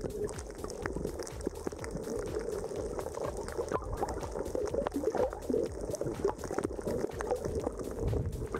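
Underwater water noise picked up by a camera held beneath the surface: a steady bubbling, sloshing sound with many faint scattered clicks.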